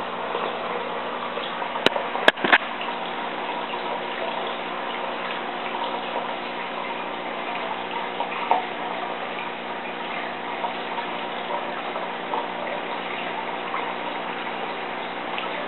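Water running steadily, with three sharp clicks about two seconds in.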